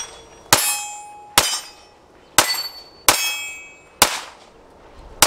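Grand Power Q100 9mm pistol firing six shots of S&B 115 grain brass ammunition at an uneven pace of about one a second, the last right at the end. Several shots are followed by a brief metallic ringing.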